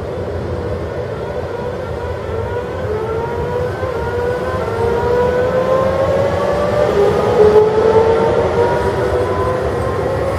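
Trenord double-deck electric multiple unit passing close by: a steady rumble of wheels on rail, with an electric whine of several tones that climbs steadily in pitch from a few seconds in, as the train accelerates.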